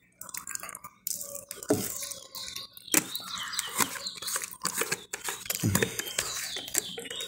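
Plastic jar of egg food being handled and its screw lid put back on: scattered plastic clicks and rustles.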